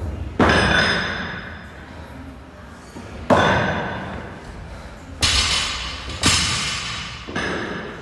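Five loud metallic clangs from gym equipment, each ringing and echoing for a second or more; the last three come about a second apart.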